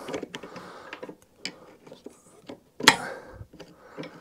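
Small scattered metallic clicks and scrapes of a tiny circlip being worked off the height-adjustment rod inside a Hayter mower's body, with one sharper click about three seconds in.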